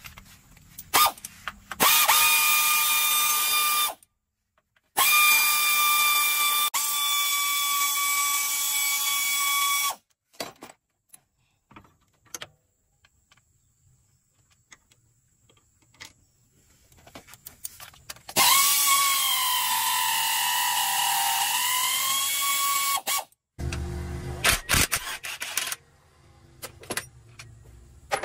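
A handheld power tool runs in three bursts of a few seconds each, a steady high whine. In the last burst the pitch sags and then recovers. Scattered clicks and metal knocks fall between the bursts.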